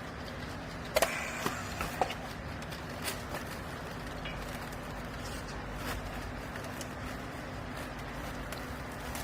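Steady hum of a clothing baler's machinery running, with a few sharp clanks and knocks, the loudest about a second in and again near two seconds.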